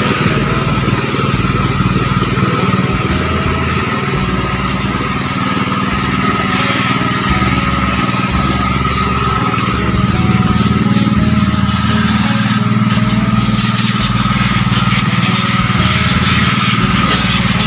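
Motorised pressure washer running steadily with a constant whine, its water jet hissing as it sprays the pickup.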